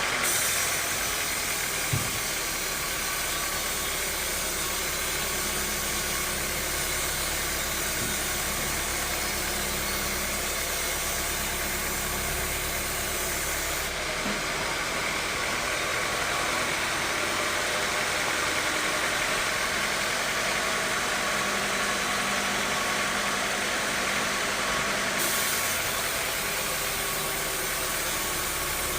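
Sawmill machinery running steadily on its engine, with a dense mechanical noise whose tone shifts abruptly about halfway through and again near the end.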